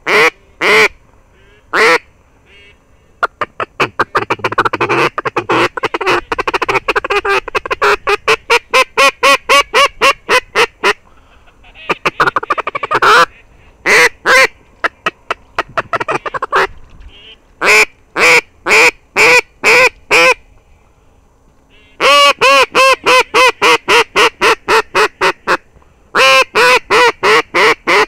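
Loud duck quacking in several rapid runs of evenly spaced quacks, about four a second, with a long run early on and shorter runs separated by brief pauses.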